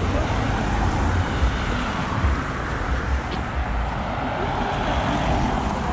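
Road traffic on a wet street, car tyres hissing, with gusts of wind rumbling on the microphone.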